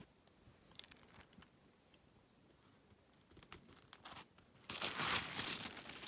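Plastic packaging film crinkling and tearing as a new laptop is unwrapped: a few light handling clicks and rustles, then a louder, longer crinkle near the end.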